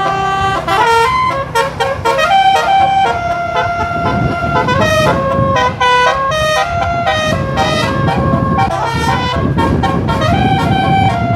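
Bus telolet horn, a multi-tone air horn, playing a quick melody of held notes that step up and down in pitch. From about four seconds in, the bus's engine and road noise rumble underneath.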